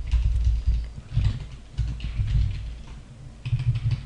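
Typing on a computer keyboard: quick keystrokes in short bursts, each with a dull low thud.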